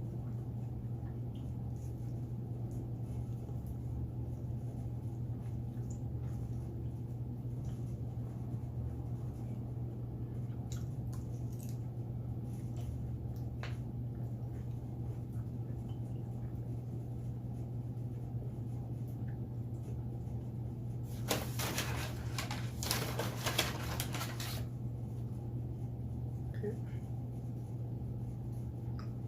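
Quiet eating sounds over a steady low hum. About two-thirds of the way through comes roughly three seconds of dense, crisp crackling.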